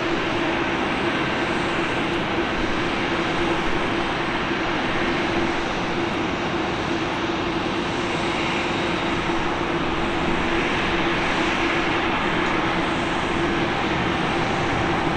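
Boeing 747-8's four GEnx turbofan engines running at low taxi thrust as the jet rolls slowly past: a steady, even jet noise with a constant low drone held throughout.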